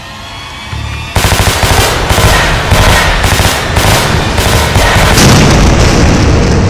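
Rapid automatic rifle fire that starts abruptly about a second in and keeps going in a long burst, with a heavier blast about five seconds in.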